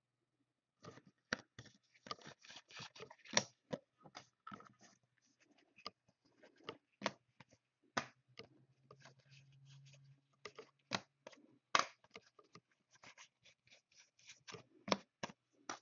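Football trading cards being handled: an irregular string of quick clicks, scrapes and slides of card stock, with a few sharper snaps.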